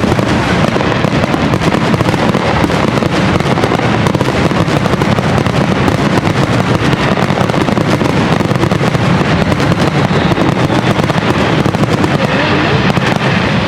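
Fireworks going off in a dense barrage: a continuous stream of overlapping pops, bangs and crackles with no pause.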